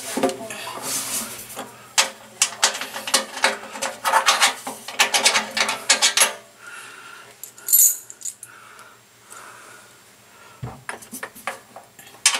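Metal sink mounting clips clinking and scraping against the channel under a drop-in sink's rim as they are pushed into place by hand, in quick runs of clicks; a single low thump about ten seconds in.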